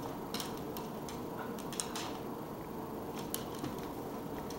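Scattered light clicks and scuffs from a dog's claws and his bed being pushed about on a hardwood floor, over a steady low hum.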